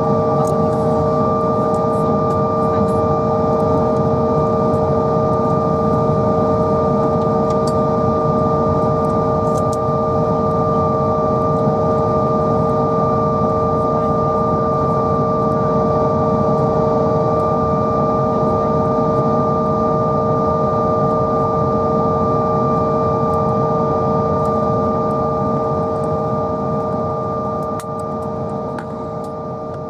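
Cabin noise of a Bombardier CRJ900 taxiing, with its rear-mounted GE CF34 jet engines at idle: a steady low rumble with a steady high-pitched whine over it. It fades out near the end.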